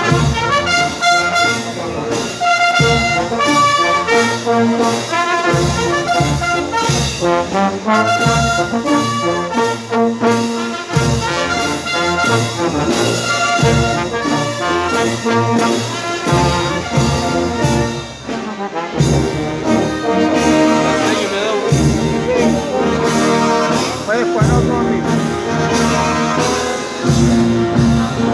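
Brass band of trumpets and trombones playing a tune at full volume over a steady beat.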